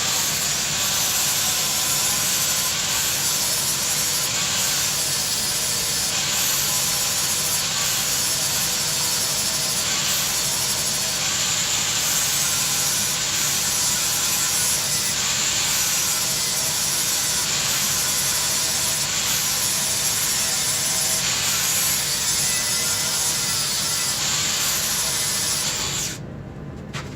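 Angle grinder grinding steadily through the steel centering pin of a truck leaf spring pack, then stopping about a second before the end.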